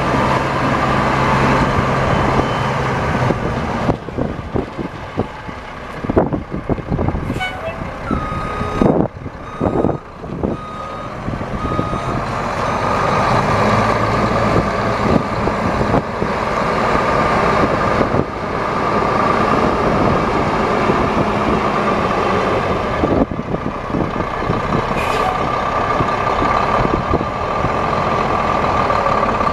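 Cummins 10.8 L inline-six diesel engine of a 1995 Ford LT9000 mixer truck running, with a steady high whine over it. A few sudden sharp knocks come about a third of the way through.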